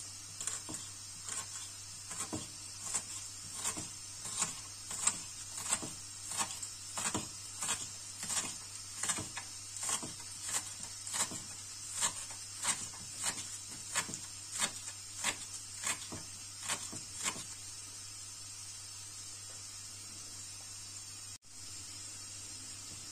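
Kitchen knife chopping spring onions on a wooden cutting board, in even strokes of about three every two seconds. The chopping stops about three quarters of the way through, leaving only a steady background hiss.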